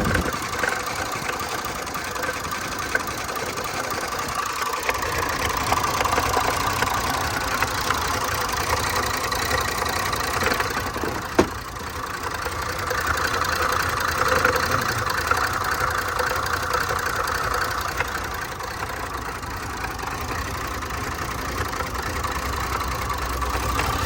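Range Rover's supercharged V8 idling roughly with a misfire. About halfway through there is a sharp click, after which the running note changes as the oil filler cap comes off and the idle smooths out.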